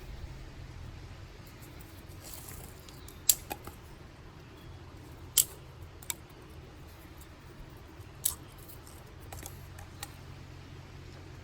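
Dry sticks being snapped by hand: a handful of sharp cracks a second or more apart, the loudest two about three and five seconds in.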